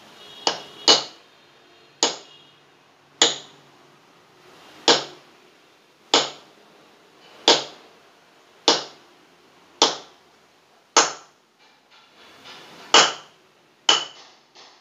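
Hammer tapping a homemade steel punch on top of a Toyota Camry front shock absorber tube, crimping the tube's top lip closed bit by bit. About a dozen sharp metallic blows, spaced a second or so apart, each with a brief ringing.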